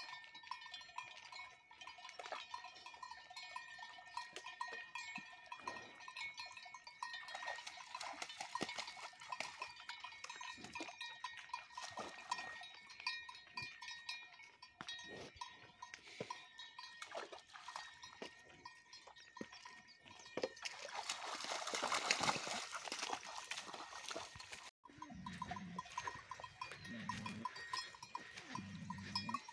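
Cowbells on grazing Simmental cattle clinking and ringing on and off as the animals move, with a louder rush of noise for a few seconds past the middle.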